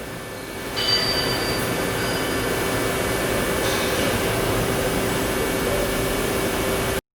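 CNC vertical turret lathe running with a steady mechanical hum and a constant low tone, a brief high whine about a second in. The sound cuts off abruptly near the end.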